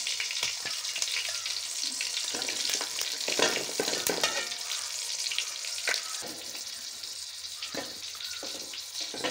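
Chicken feet sizzling in hot ghee in a steel pan, with a steel spoon scraping and clicking against the pan as they are scooped out. The sizzle eases a little in the last few seconds.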